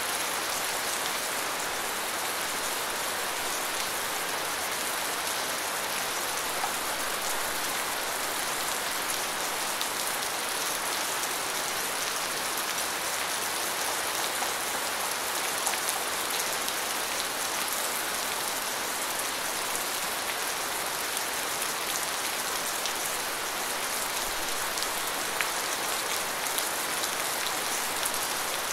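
Steady rain falling: a dense, even hiss with small scattered drop ticks.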